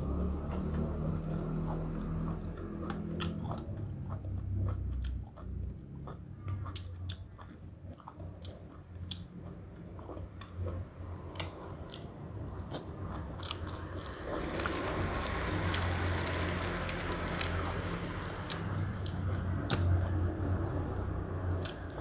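Close-up eating sounds: a person biting and chewing mouthfuls of raw leafy greens, with many short crisp crunches. Partway through, a wider rushing noise swells for a few seconds under the chewing.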